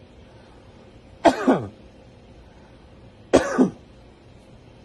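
A man coughing deliberately twice, about two seconds apart, each cough starting sharply and trailing off with a falling pitch. These are the deep-breath coughs of the knee-chest proning manoeuvre, done to move secretions out of the lower lungs.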